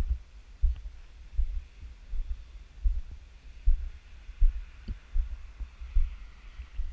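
Walking footfalls carried through a body-worn camera as dull low thumps, about one every three quarters of a second, over a faint steady hiss.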